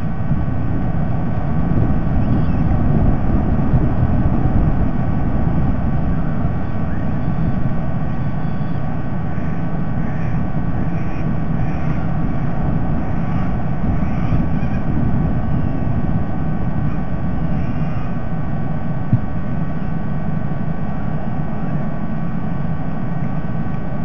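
Steady low rumble of outdoor background noise picked up by the nest-cam microphone, with a faint constant electrical hum and a few faint high chirps around the middle.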